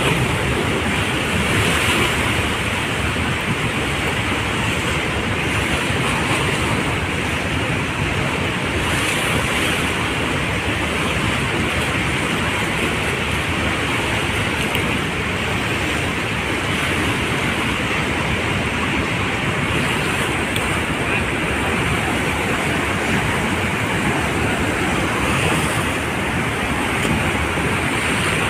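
Steady rush of choppy, churning river water, mixed with wind buffeting the microphone.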